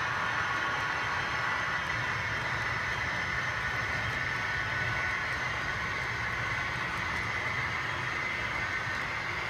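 A model railway train, a Class 56 diesel locomotive hauling loaded ballast wagons, pulling away and running steadily along the track. It makes an even mechanical running sound with no change in pace.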